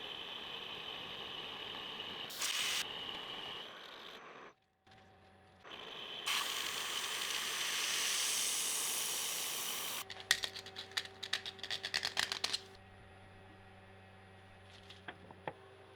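CNC milling machine boring out the centre hole of a steel chuck backplate: a steady cutting noise with a high whine, then a hiss that rises over a few seconds. About ten seconds in comes a run of rapid metallic clicks and rattles, then a quiet steady machine hum.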